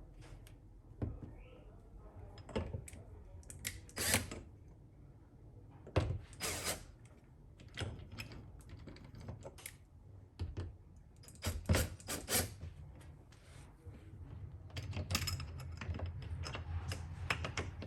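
Irregular clicks and knocks of hardware being handled: the quick-release wall bracket and its loosely set screws and spacers being shifted and adjusted against the wall.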